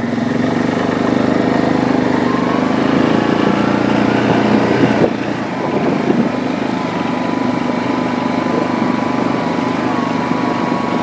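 Yamaha Grizzly 700 ATV's single-cylinder engine running under way, climbing in pitch over the first few seconds, easing off briefly about five seconds in, then pulling steadily. A thin steady whine sounds along with it in the second half.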